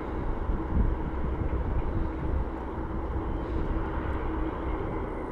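Boeing 747-400 jet engines running at taxi power as the four-engined airliner taxis: a steady rumble with a thin steady hum in it.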